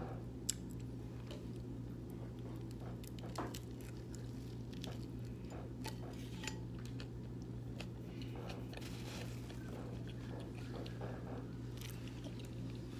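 A person chewing a huge bite of pizza close to the microphone: scattered soft wet mouth clicks and chewing, with one sharper click about half a second in. A steady low hum runs underneath.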